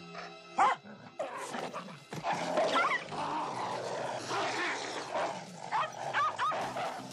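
Dogs fighting: snarling and barking, with sharp yelps about half a second in, near three seconds, and twice around six seconds.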